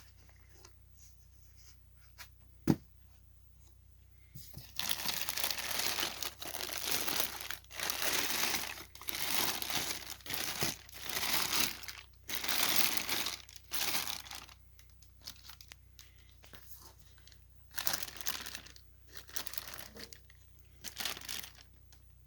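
Plastic wrapping crinkling and rustling in repeated bursts as it is handled and pulled open. A single sharp click comes shortly before the crinkling starts.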